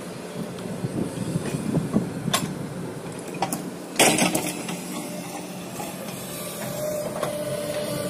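Excavator working: a steady engine hum with scattered metallic clanks and knocks, the loudest about four seconds in.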